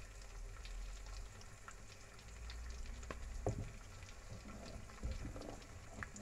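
Milk and sago simmering in a pan with a faint crackle of small pops while a wooden spatula stirs it, knocking against the pan a couple of times about three seconds in.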